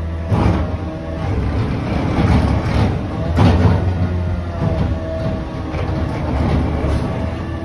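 Garbage truck running in place: a steady diesel engine hum with a whine that comes and goes, and metal clanks about a third of a second and three and a half seconds in.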